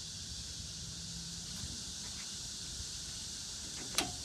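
Steady background hiss, then a single sharp knock with a brief ring near the end as a hand bumps the sliding table of the idle sliding table saw.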